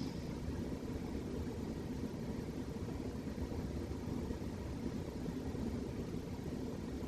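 A sleeping cat's snoring: a low, steady rumble.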